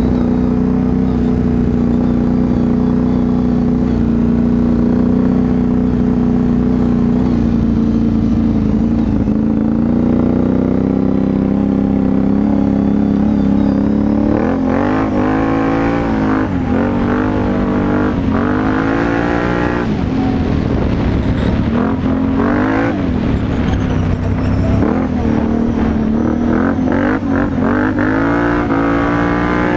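Can-Am Renegade 850 XXC ATV's V-twin engine through a Yoshimura exhaust. It runs steadily at a constant speed at first, then from about halfway it revs up and drops back over and over as the throttle is opened and closed.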